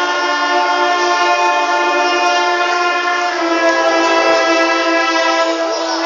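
Brass band playing long held chords, with a change of chord about three seconds in.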